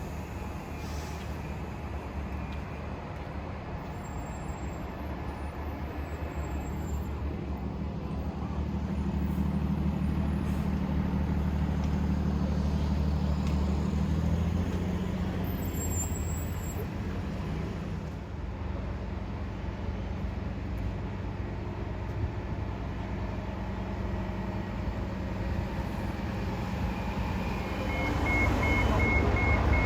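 Transit bus engine running with a steady low rumble that grows louder about eight seconds in and fades after about fifteen, as a bus idles and pulls through. Near the end a fast series of even electronic beeps starts, like a bus's reversing or warning beeper.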